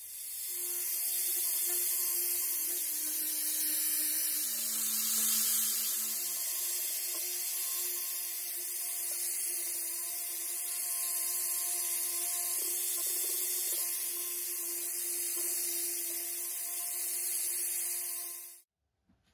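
Handheld power tool spinning a wire brush wheel against a cast aluminium block, cleaning up the casting's surface: a steady motor whine with the scratch of the wire bristles. The pitch sags briefly a few seconds in, and the sound stops abruptly near the end.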